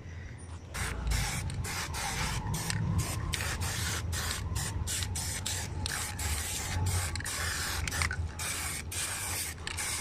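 Aerosol spray-paint can being sprayed in many short hissing bursts with brief pauses between them, starting about a second in.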